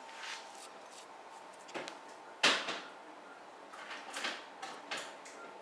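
A few light knocks and taps from handling, with one sharp, louder knock about two and a half seconds in.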